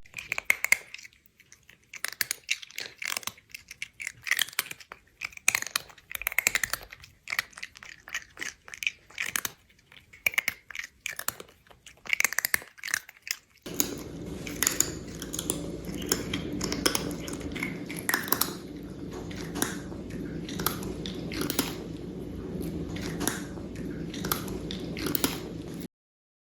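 A cat chewing dry kibble, with quick, irregular crunches. About halfway through, a steady low hum comes in under the crunching.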